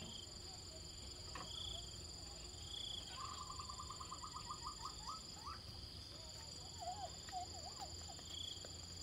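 Insects droning steadily, with short high chirps every second or so. In the middle comes a bird's rapid run of about fifteen notes that speed up and rise slightly in pitch, and a few short wavering calls follow near the end.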